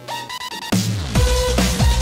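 Electronic background music: a synth melody, then about three-quarters of a second in a heavy bass comes in with repeated falling sweeps and gets much louder.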